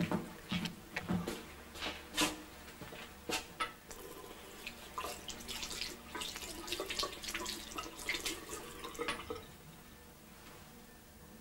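Tap water running into a washbasin, with splashing, dying away near the end. A few sharp knocks come in the first two seconds, and a low hum sets in under the water about a second in.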